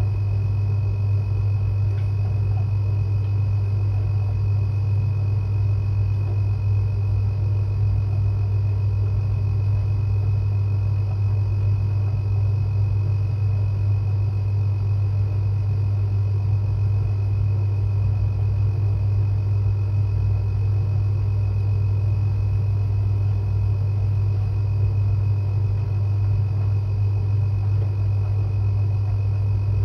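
Washing machine drum spinning at a steady speed: a constant low hum with a faint steady whine above it, without let-up.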